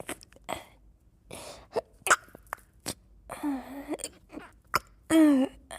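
A woman's stifled sneezing fit: quick breathy catches and several short, sharp held-in sneezes, with two drawn-out voiced gasps, the second and loudest just before the end.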